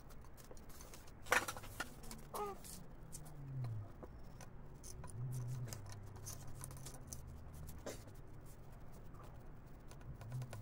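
Small metal clicks and knocks from carburetor parts being handled and fitted together by hand, with a sharper click about a second in. A low hum rises and falls underneath.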